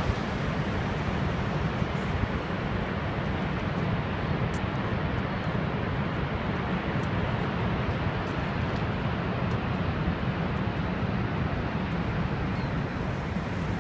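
Niagara's Horseshoe Falls heard from the rim: the steady, deep roar of a huge volume of water plunging into the gorge, an even rumbling rush with no break.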